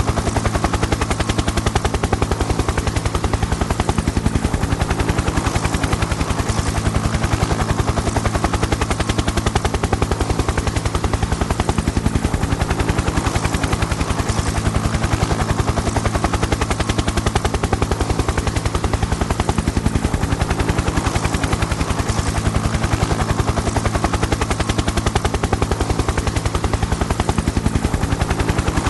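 Helicopter rotor blades making a fast, even chop over a steady engine hum, holding at a constant level with no pass-by or change.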